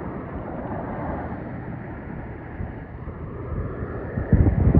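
Roaring of surf breaking on the beach, a steady rushing wash. Near the end, wind starts buffeting the microphone in loud low gusts.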